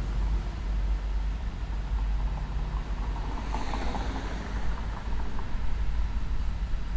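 Steady low rumble of street traffic, with a vehicle going by about three and a half seconds in.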